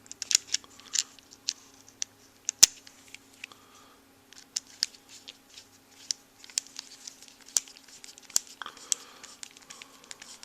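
Irregular small clicks and ticks of a screwdriver and screws being worked into a Traxxas T-Maxx transmission housing as the screws are tightened, with one sharper click a few seconds in.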